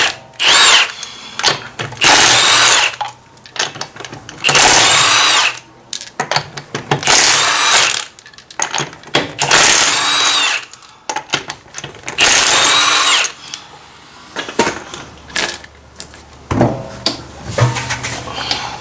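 Impact wrench with a 21 mm socket running in six bursts of about a second each, a few seconds apart, rattling off the wheel's lug nuts one by one. Lighter metal clinks come between the bursts, and a few clunks near the end.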